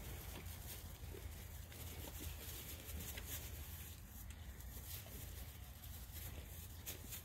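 Faint rustling and light patter of young goat kids' hooves moving on straw bedding, a few scattered soft ticks, over a steady low rumble.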